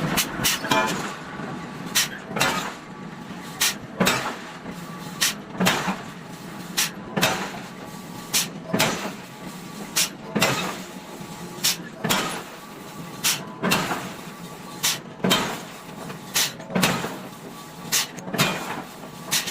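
Hammer blows on hot iron at the anvil, flattening a square block into a disc. The strikes land in quick pairs, about one pair every second and a half.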